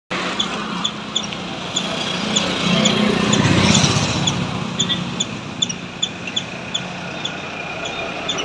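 Street traffic, with motorcycles running past and the loudest pass about three to four seconds in, over a steady engine hum. Short high chirps repeat two or three times a second above it.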